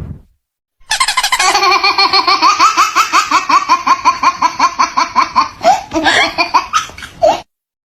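A long run of high-pitched laughter, rapid 'ha-ha-ha' pulses at about five a second, starting about a second in and cutting off suddenly near the end.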